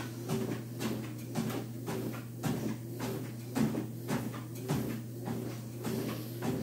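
Footsteps thudding on a running treadmill belt as a person walks backwards, about two steps a second, over the steady hum of the treadmill.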